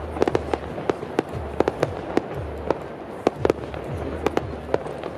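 Fireworks display: a fast, irregular string of sharp bangs and crackles, several a second, over a steady low rumble.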